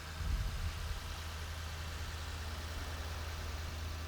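A vehicle engine idling with a steady low hum, under a wash of outdoor noise. A couple of low bumps come about half a second in.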